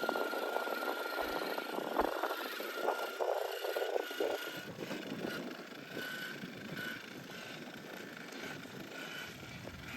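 Axial SCX6 RC crawler driving on loose dirt: the electric motor whines at a steady high pitch while the tyres crunch. Both drop off about four and a half seconds in, leaving a quieter running noise.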